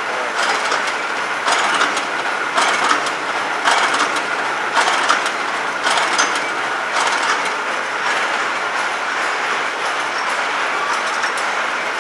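Processed-cheese packing machine running: a steady mechanical whir with a clack about once a second, the clacks fading after about eight seconds.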